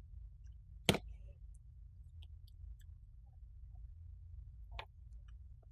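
Small sharp clicks from handling a part and tools on a circuit board: one loud click about a second in, a softer one near the end, and faint scattered ticks, over a low steady hum.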